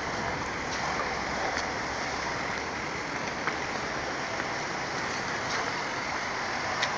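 Steady wash of city street traffic noise, with a few short sharp clicks.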